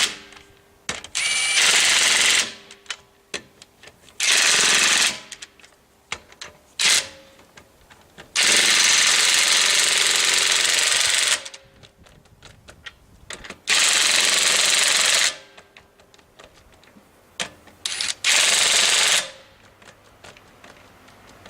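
Ridgid 18V brushless half-inch cordless impact wrench hammering in about seven bursts, the longest about three seconds in the middle, working on rusty fasteners. Small clicks and clinks of the socket and tool come between the bursts.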